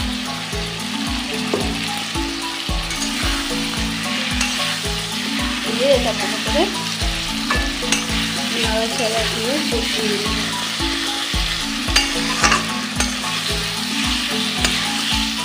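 A spice paste of cumin, green chilli and ginger sizzling in hot oil in an aluminium karai with potatoes and ridge gourd, while a flat metal spatula stirs and scrapes the pan. The masala is being fried down. The sizzle is steady, with a few sharper scrapes of the spatula on the pan.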